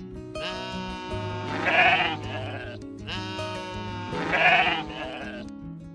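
Sheep bleating twice, two long wavering bleats about three seconds apart, over background music.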